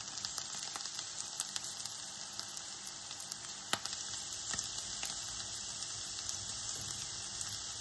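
Chopped onion and vegan bacon lardons frying in oil in a pan: a steady sizzle with scattered small crackles and one sharper pop near the middle.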